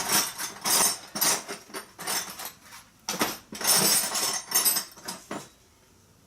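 Small metal tools clinking and clattering together as someone rummages through them for a pin punch of the right size. The clatter stops about five and a half seconds in.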